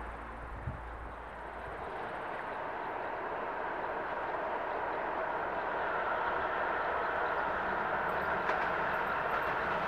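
An approaching train's rumble and rail noise, growing steadily louder from about two seconds in.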